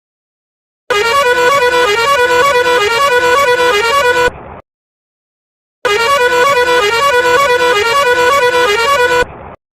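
Musical vehicle horn, of the kind fitted to buses, playing a short quick tune of changing notes. It sounds twice, each burst about three and a half seconds long, separated by about a second of silence.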